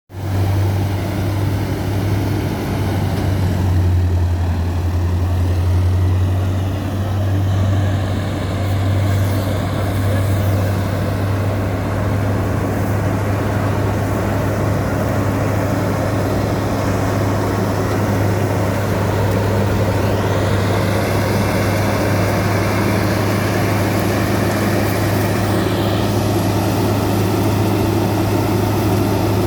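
Multi-crop combine harvester running steadily: a constant deep engine hum with machinery noise over it.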